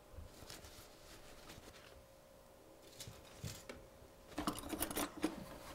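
Soft kitchen handling noises: for most of the time little more than a faint steady hum, then near the end a run of light rustles and small clicks as apples are wiped with a paper towel and handled on the counter.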